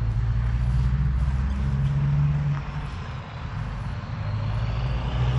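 Small tractor's engine running steadily, its low drone easing off a little around the middle and picking up again near the end.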